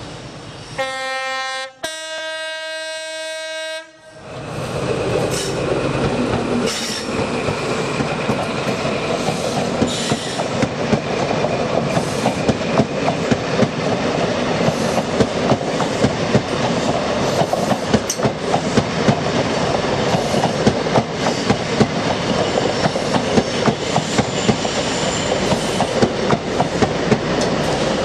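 InterCity 125 HST (Class 43 power car) sounding its two-tone horn, a short lower note then a longer higher one. The train then passes close by, a loud steady rush with the wheels clicking rhythmically over the track.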